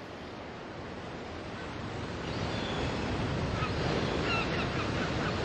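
Ocean surf washing onto a beach, an even rushing that grows louder; from about three and a half seconds in, a run of short high bird calls comes in over it.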